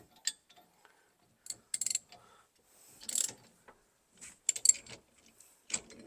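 Hand tools working on a car's steering wheel and column: scattered sharp metallic clicks and clinks, with a quick run of ratchet-like clicks about two seconds in, as the wheel is being taken off.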